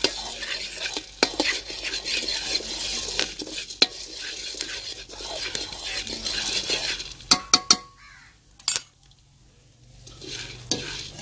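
Metal spoon stirring and scraping oiled popcorn kernels around a metal karahi, the kernels rattling against the pan. A few sharp metallic clinks come about seven seconds in, then a short lull, then a wire skimmer scrapes through the kernels near the end.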